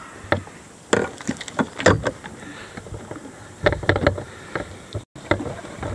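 Scattered knocks and clicks of handling in a small fishing boat as a fish is reeled in and swung aboard on the line, with a cluster of sharp knocks about a second in and another about four seconds in.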